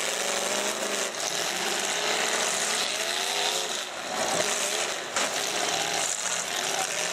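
Demolition derby cars' engines revving and running hard, pitch rising and falling, with a few short bangs of cars colliding.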